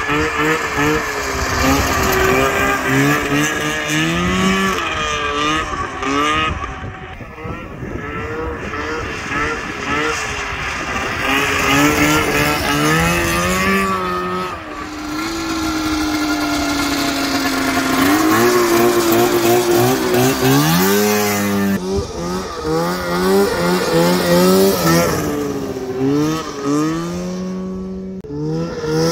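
Polaris 488 two-stroke twin engine of a custom racing lawn mower revving hard, its pitch rising and falling with the throttle as it is driven. About halfway through it winds down in one long falling note, then revs up sharply again.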